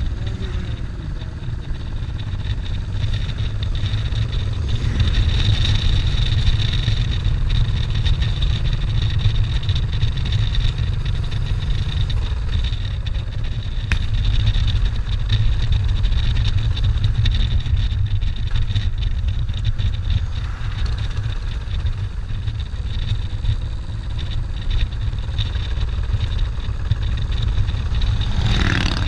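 A motorcycle riding at road speed, heard from a camera mounted on the bike: the engine runs steadily under a heavy, low rumble of wind on the microphone.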